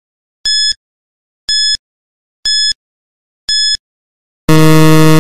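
Quiz countdown timer sound effect: four short, identical high-pitched beeps, one a second, ticking off the last seconds. About four and a half seconds in, a louder, lower buzzer sounds as time runs out.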